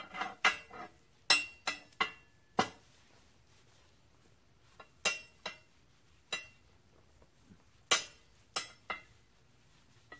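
Sharp metal clinks and knocks of steel being struck or handled, with a brief ringing after each, coming in irregular clusters with a pause of a couple of seconds between them.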